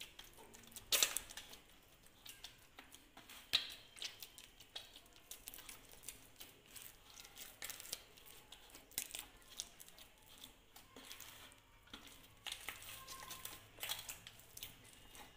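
Hands kneading soft, wet maida (refined wheat flour) dough in a steel platter: faint, irregular squelches and pats, the loudest about a second in.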